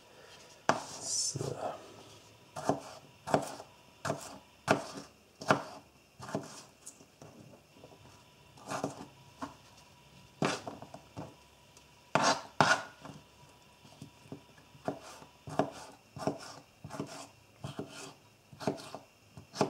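Spyderco Native 5 folding knife chopping red bell pepper on a plastic cutting board: sharp, uneven knocks of the blade on the board, about one or two a second, with short pauses while the diced pieces are gathered by hand.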